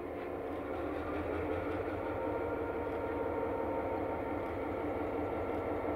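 EMD GP9 diesel locomotive's 16-cylinder two-stroke engine running steadily as the locomotive crawls past at low speed, growing a little louder as it comes near.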